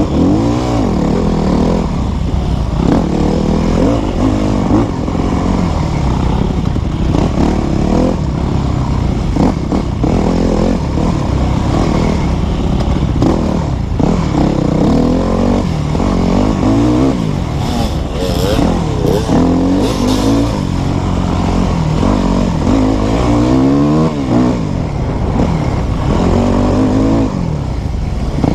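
Yamaha dirt bike engine heard on board while being ridden hard, its pitch rising and falling constantly with throttle and gear changes. A few clattering knocks come about two-thirds of the way through.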